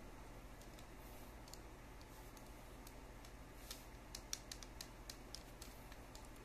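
Faint clicking and rattling of plastic Lego parts as a Lego toy gun is handled, with a quick run of clicks about four to five seconds in.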